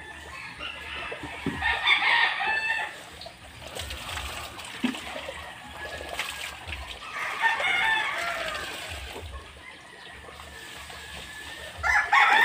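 A rooster crowing twice, about two seconds in and again around seven seconds, with another crow starting near the end. Between the crows, water is poured and splashes as a garment is rinsed by hand over a plastic basin.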